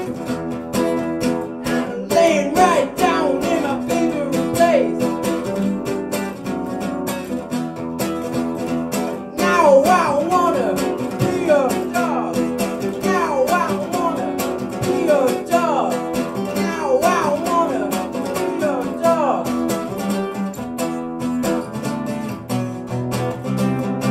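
Live acoustic guitar strummed steadily, with a man singing in stretches over it, picked up by a microphone and amplified through a PA speaker.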